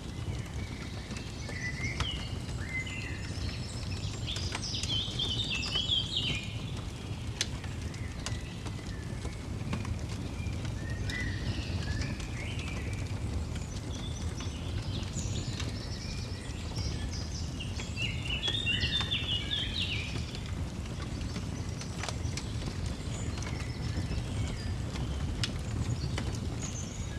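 Birds singing in several bursts of quick chirps, over a steady low rumble, with a few sharp crackling pops from a fire.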